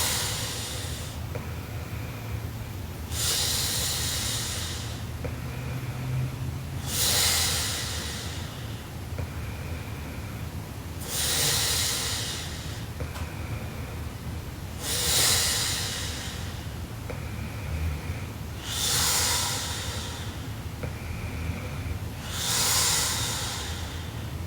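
A sleeping woman snoring heavily: a low rattling snore alternates with loud hissing breaths, one breath about every four seconds.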